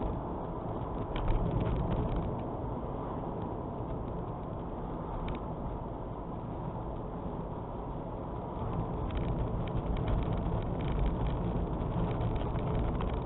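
Strong snowstorm wind buffeting the microphone as a deep, steady rumble, swelling in gusts about a second in and again for the last few seconds.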